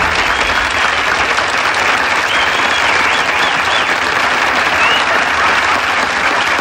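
Studio audience applauding loudly, a steady dense clatter of clapping.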